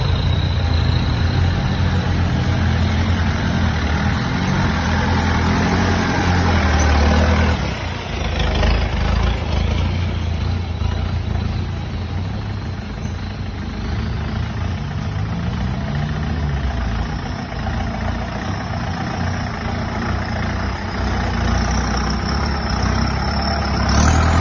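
Four-wheel-drive vehicle's engine running as it drives an off-road track, its pitch rising and falling with a dip in loudness about a third of the way in.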